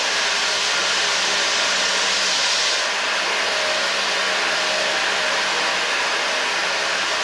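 Altitude chamber being vented through a vent with no muffler: a steady, extremely loud rush of air.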